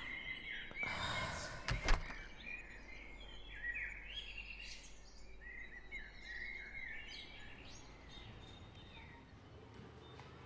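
A short swish and a sharp knock, like a door shutting, about two seconds in, then birds chirping in many short calls for several seconds, fading out near the end.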